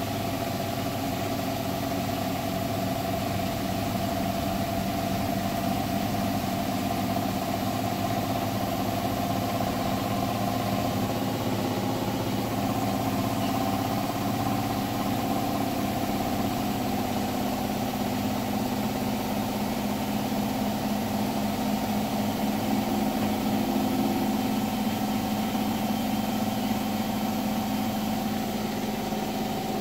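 Hotpoint Bed + Bath washing machine spinning at 1400 rpm on its final spin: a steady hum with a weird knocking noise.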